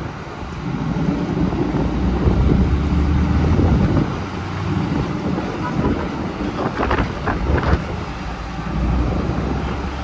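A heavy truck's engine running steadily, with wind buffeting the microphone. A few short sharp sounds come about seven seconds in.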